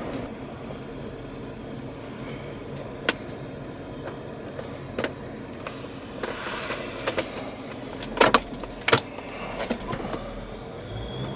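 Steady hum of a car, with a scattering of sharp clicks and knocks; the loudest come as a pair about eight seconds in.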